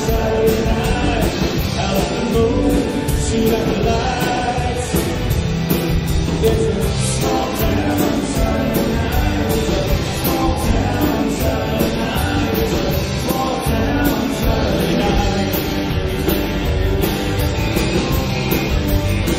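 A live band playing an up-tempo rock number on drum kit, electric and acoustic guitars and bass guitar, with a singer at the microphone.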